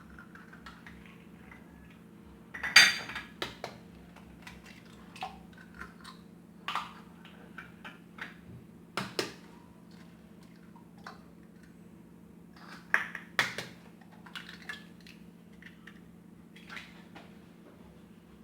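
Eggs being cracked on the rim of a container: scattered sharp knocks and clinks, the loudest about three seconds in, over a steady low hum.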